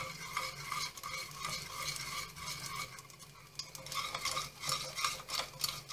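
A wire whisk stirs a thickening starch-and-water mixture in a small metal saucepan, with rapid scraping and clicking against the pan. It eases off briefly about halfway through, then picks up again.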